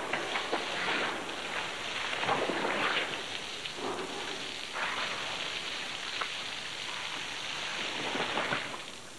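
Hose spray of water splashing onto a southern white rhino's wet hide and the shed floor, a steady hiss that swells and eases as the spray moves, stopping at the very end.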